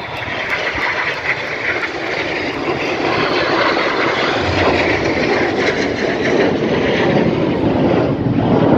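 Jet noise from Red Arrows BAE Hawk T1 jets and their Adour turbofan engines on a low display pass: a steady rushing roar that slowly grows louder as the jets come closer.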